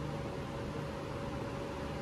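Steady background hiss with a low hum and a faint steady tone, like a fan or air conditioner running; the screwdriver turn makes no sound that can be picked out.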